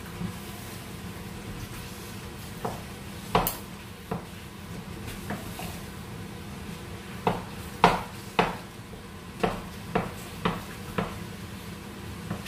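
A spoon stirring in a metal cooking pot, knocking against its side about a dozen times in sharp irregular clacks, most of them in a quick run in the second half, over a steady low hum.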